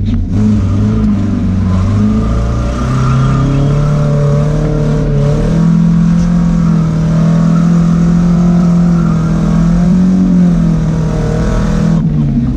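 Nissan 240SX's swapped-in KA24DE 2.4-litre four-cylinder engine, heard from inside the cabin, pulling under acceleration. Its pitch climbs over the first few seconds, holds steady, then drops near the end as the revs fall.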